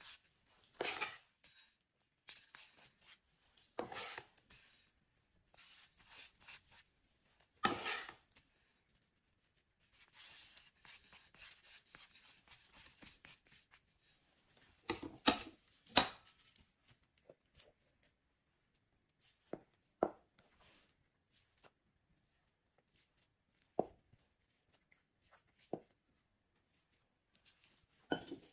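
Metal icing spatula scraping as it spreads whipped cream around a sponge cake: several short, loud scrapes in the first half, then a few light taps and knocks.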